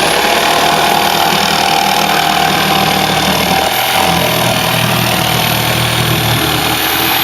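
Electric jigsaw cutting through a duck-house panel, its motor running steadily under load with the blade sawing continuously.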